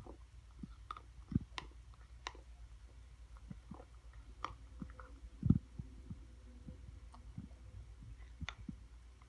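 A 15-year-old cat chewing her food and grinding her teeth: irregular clicks and crunches, with two louder low thumps about a second and a half in and about five and a half seconds in. The grinding is feline bruxism, which vets put down as likely due to both dental and GI disease.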